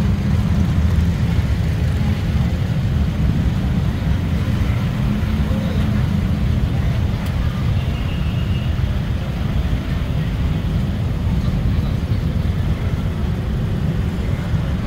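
Traffic noise in a street jam: a steady low rumble of idling vans, cars and motorbikes, with crowd voices mixed in.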